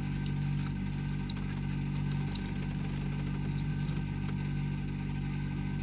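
Steady low mechanical hum, like an idling engine, with a faint constant high hiss above it.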